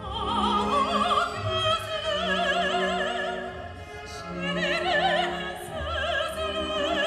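A woman's operatic voice sings a series of long held notes with a wide vibrato, accompanied by a symphony orchestra's strings.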